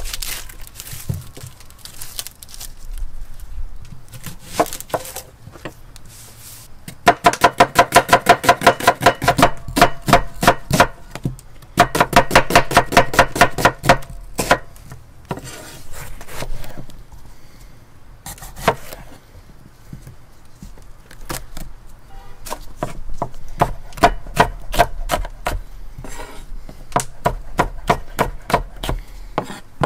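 A knife chopping on a wooden cutting board. There are scattered cuts, then two runs of rapid strokes about a quarter of the way in, then a steadier series of chops near the end.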